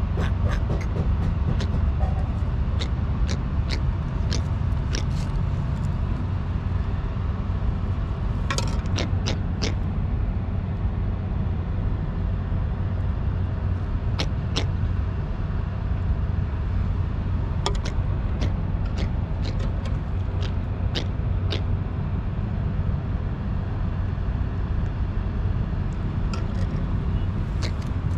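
Freshly landed trevally making short croaking clicks, scattered in small groups, over a steady low rumble.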